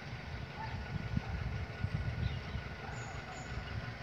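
Low, uneven rumble of road vehicles idling in a queue at a closed level crossing.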